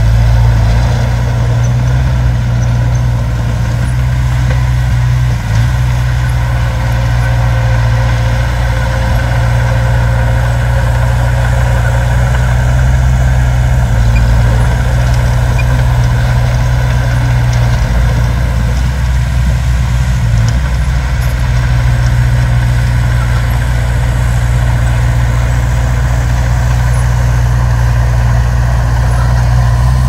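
Small crawler bulldozer's diesel engine running steadily, a deep, even engine note with little change.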